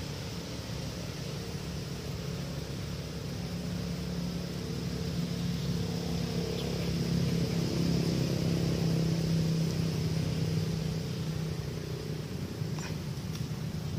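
A low, steady engine hum over a background hiss, growing louder about halfway through and easing near the end.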